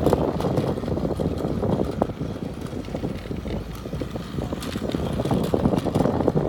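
Battery-powered Plarail toy train running on plastic track, a steady rattling whir from its motor and gears with many small clicks from the wheels on the track.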